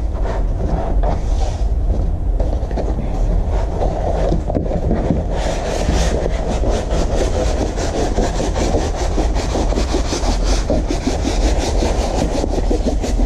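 Large diamond-painting canvas and its printed protective paper crinkling and rubbing as it is rolled up by hand on a tabletop, a dense fast crackle that thickens about halfway through, over a steady low rumble.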